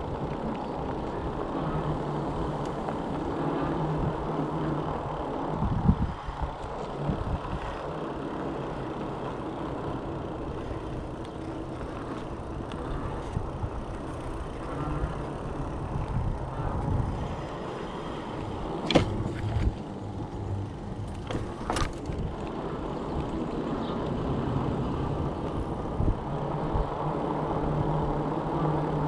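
Electric bike riding over asphalt: steady tyre and wind noise with a low motor hum that comes and goes, and two sharp knocks a few seconds apart about two-thirds of the way in.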